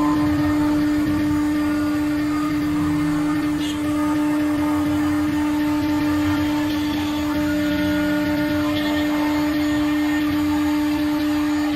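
CNC router spindle running with a steady pitched whine while its cutter mills letters into a sheet, with rough cutting noise beneath. The loudness dips briefly about four seconds in.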